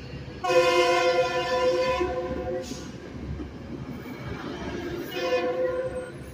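Metrolink commuter train's horn sounding a chord of several notes: one long blast starting suddenly about half a second in and fading out near three seconds, then another about a second before the end. The coaches rumble as they roll past.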